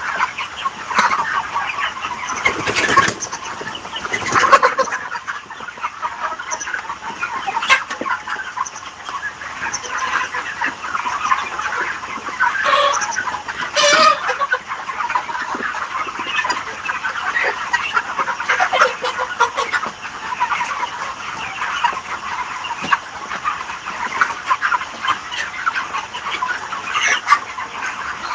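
A flock of chickens clucking and calling together in a dense, continuous chatter, with a few louder calls standing out and occasional sharp knocks.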